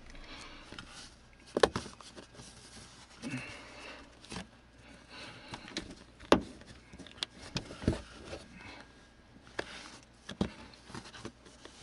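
Scattered sharp clicks and knocks with light rustling between them: a tape-wrapped plastic pry tool tapping and levering at a plastic tie-down trim bezel set in car carpet, along with hand and camera handling noise.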